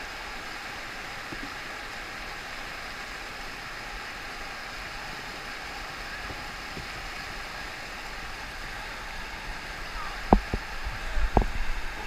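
River rapids rushing steadily around a raft. About two seconds before the end come a few sharp knocks, louder than the water.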